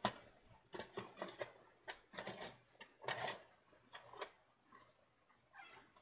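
Plastic camping lantern being handled: a string of irregular clicks, knocks and rustles as it is moved about.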